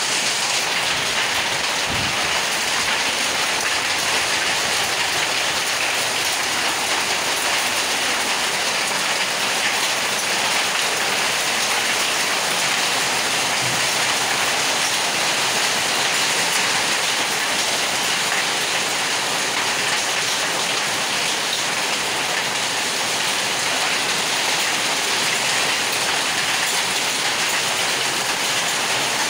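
Heavy downpour mixed with hail pelting wet concrete paving: a steady, dense hiss of countless impacts that holds even throughout.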